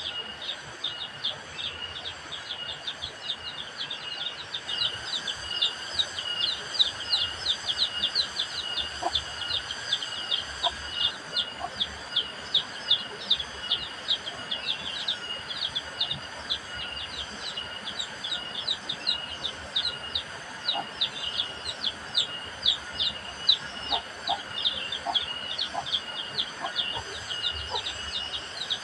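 A steady run of short, high chirps, several a second, each dropping quickly in pitch, over a constant high buzz; the calls of a chirping creature in forest surroundings.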